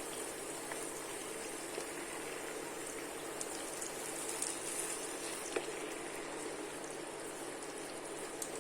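Chopped tomatoes and onions cooking in hot oil in a pot: a steady soft sizzle with a few light ticks.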